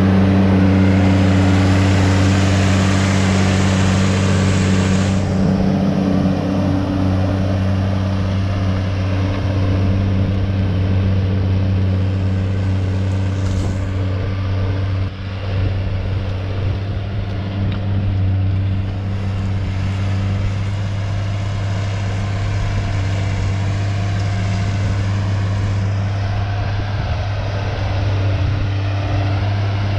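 New Holland T6050 tractor's diesel engine running steadily under load while pulling a plough, a constant low drone. A loud hiss rides over it for the first five seconds.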